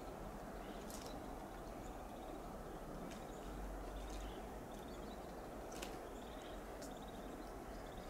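Western gray squirrel giving short, sharp alarm calls, faint against steady low background noise: single sharp calls about a second in, just before six seconds and about seven seconds in, with quieter rapid clicking chatter between them.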